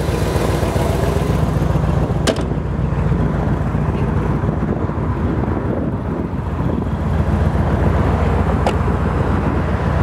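1970 Chevrolet Corvette's 350 V8 idling steadily through its side pipes, a steady low rumble that gets a little stronger in the last few seconds.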